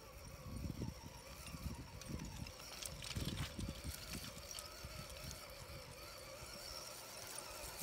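Low gusts of wind rumbling on the microphone over the faint steady whine of a scale RC crawler's electric motor and drivetrain as it drives over loose slate, with a few light clicks.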